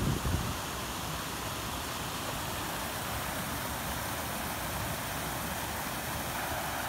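Muddy floodwater rushing down a stream channel, a steady even rush of water.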